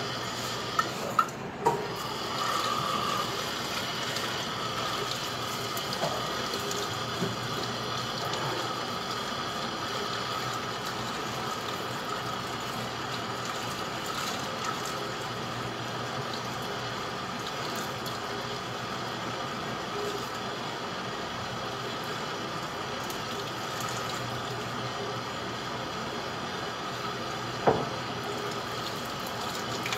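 Tap water running steadily into a steel sink through a mesh strainer. There are a few sharp knocks in the first two seconds and one near the end, which fit the utensil striking the metal strainer.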